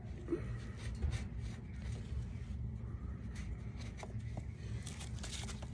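Ratchet wrench clicking in short irregular runs as the Harley's transmission drain plug is run back in, over a steady low hum.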